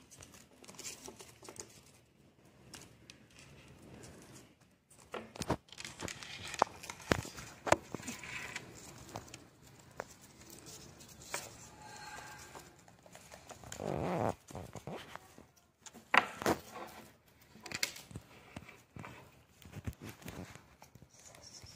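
Hands handling a thermocol (polystyrene) flower while winding satin ribbon round its stem: soft crinkling and rubbing with scattered small clicks. A short pitched sound comes about two-thirds of the way through.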